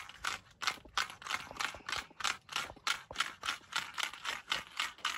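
A small hooked fish flapping and thrashing on the line, making a quick rhythmic rustling and slapping about four to five times a second.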